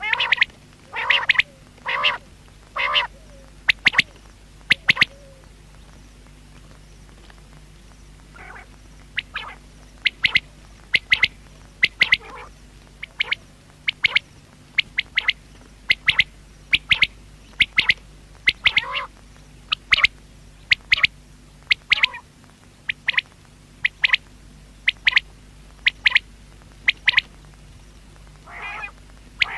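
Common quail calling: a few fuller notes about a second apart at the start, then a long run of short, sharp calls, mostly one or two a second.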